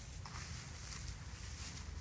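Wind rumbling unevenly on the microphone, with faint rustling of dry straw.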